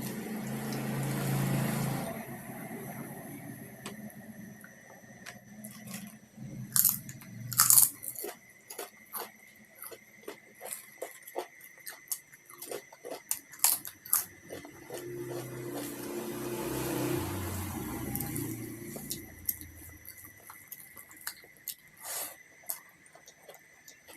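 Close-up eating sounds: a couple of loud crunchy bites about seven seconds in, likely the chips, then steady chewing with many small mouth clicks.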